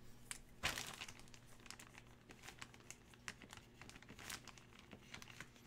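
Faint crinkling and scattered light clicks of packaging being handled, over a low steady electrical hum.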